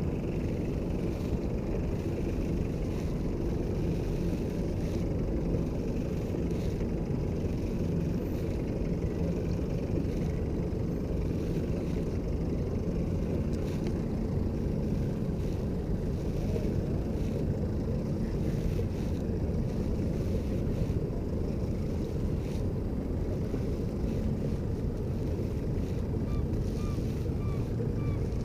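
Boat motor running steadily on the water, a constant low rumble with a faint hum in it. A few faint high chirps come near the end.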